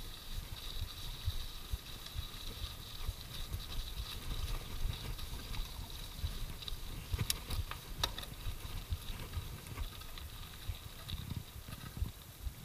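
Mountain bike riding down a wet dirt trail: a steady rumble and rattle of tyres and bike over the rough ground, with a few sharp knocks about seven and eight seconds in.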